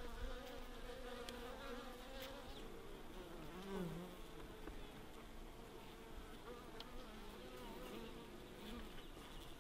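Honey bees buzzing in an open hive: a faint, steady hum from many wings, its pitch wavering, swelling briefly about four seconds in.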